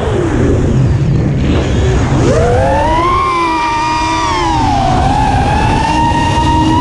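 Brushless motors of an FPV freestyle quadcopter whining as heard from its onboard camera, the pitch following the throttle: falling in the first second, rising again about two seconds in, holding, dipping briefly near five seconds, then steady. A low rumble of wind and frame vibration runs underneath.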